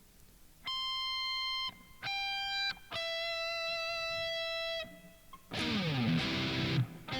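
Distorted electric guitar playing three sustained high single notes, each lower than the last, a descending C major arpeggio, then a noisy scrape that sweeps down in pitch near the end.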